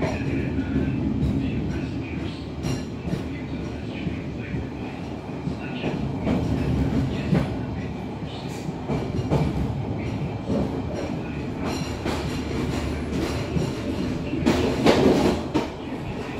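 Passenger train coach rolling slowly over turnouts and rail joints: a steady rumble with irregular clicks and clanks from the wheels, and a louder clatter near the end.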